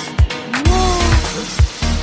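Upbeat background dance-pop music with a steady kick-drum beat about twice a second; a deep bass line comes in about half a second in.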